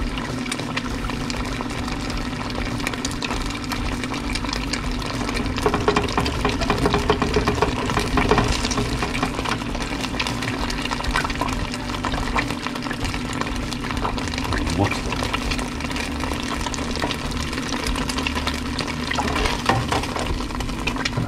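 Wontons deep-frying in oil at 350°F in an electric deep fryer: a steady bubbling crackle of many fine pops, with a steady low hum underneath.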